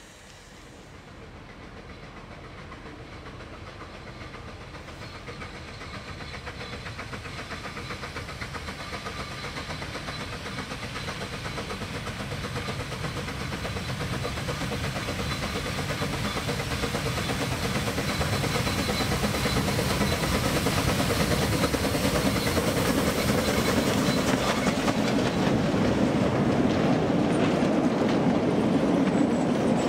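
1945 Franco-Belge 0-4-0 narrow-gauge steam locomotive running with its train of wagons, growing steadily louder as it approaches and passes close by.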